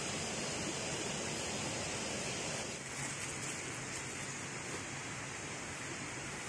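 Steady rushing of flowing stream water, a little quieter from about three seconds in.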